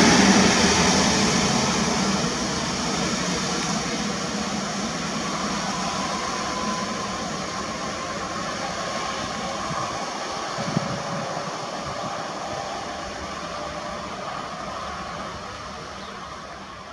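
Newag Impuls ED78 electric multiple unit running away along the track, its wheel-on-rail rolling noise fading steadily into the distance, with a faint steady whine in the middle. A short knock sounds about eleven seconds in.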